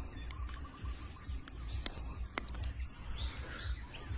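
Pond-side insect drone: a steady high-pitched buzz from insects, under a low rumble, with a few short chirping trills.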